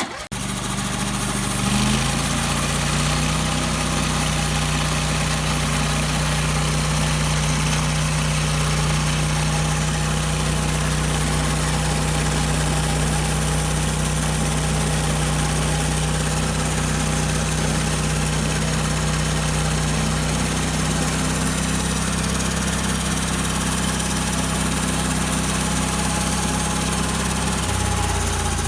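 Gasoline engine of a Norwood HD36 portable bandsaw mill starting up and rising to speed within about two seconds, then running steadily, with a slight change in pitch about twenty seconds in and the pitch dropping near the end.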